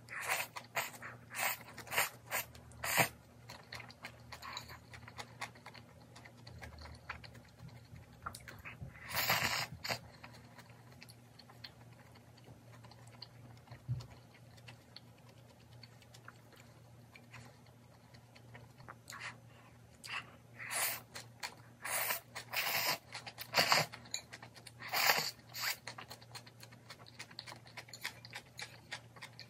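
Close-up eating sounds of instant ramen with bean sprouts: noodles slurped and crunchy bean sprouts chewed in irregular bursts, with a louder long slurp about nine seconds in and a busy run of slurps and chewing in the last third.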